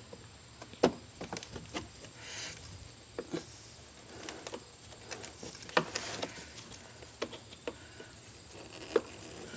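Irregular sharp plastic clicks and knocks from a flathead screwdriver pushing in and pressing down the plastic retaining tabs that hold a 2010 Kia Soul's front grille to its bumper cover, with the loudest clicks about a second in, near six seconds and near nine seconds.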